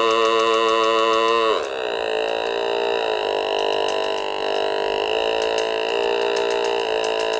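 Otamatone Deluxe, a handheld electronic synthesizer, played on its low octave. A held note slides down about a second and a half in to a lower note, which then shifts slightly in pitch a few times.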